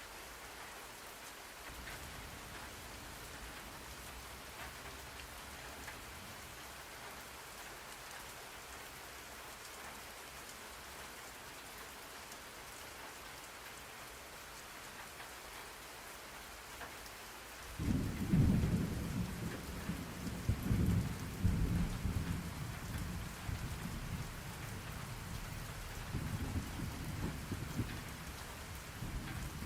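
Steady rain hissing on a surface. A little past halfway, a deep rumble of thunder starts suddenly, rolls for several seconds, fades back, and swells again near the end.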